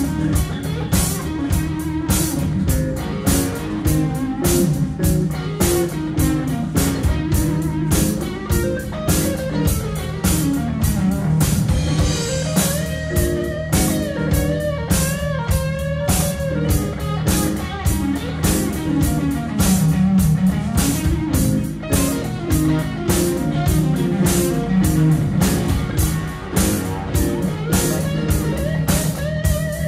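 Live rock band playing an instrumental passage: electric guitar over bass guitar and a drum kit keeping a steady beat, with a bending melodic line from the guitar in the middle.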